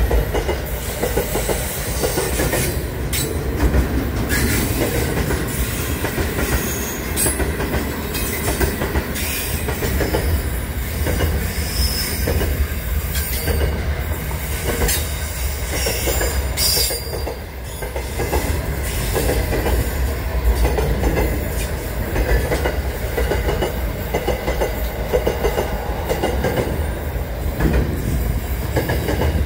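Container wagons of an intermodal freight train rolling past: a steady rumble and rattle of steel wheels on the rails, with short high-pitched wheel squeals a few times.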